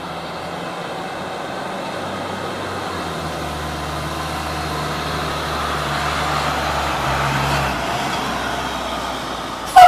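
2004 Chevrolet C7500 service truck driving up and passing by, its engine growing louder as it nears and loudest about seven seconds in. Just before the end, a short, very loud pitched blast.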